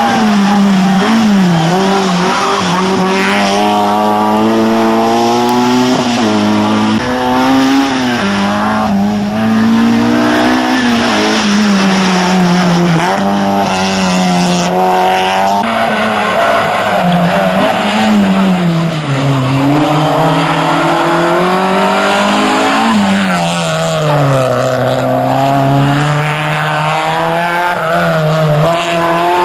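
Opel Corsa A GSi engine being driven hard, its pitch climbing and dropping back again and again as it revs up and eases off.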